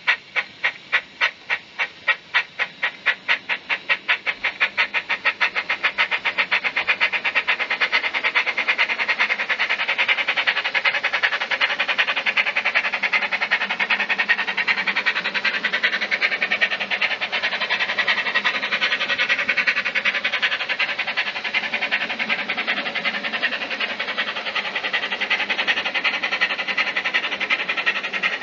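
Steam-locomotive chuffing from a Bachmann Double Fairlie model's DCC sound decoder: sharp, even beats about two or three a second that quicken as the model gathers speed. By about eight seconds in they blur into a rapid, continuous chuffing rush.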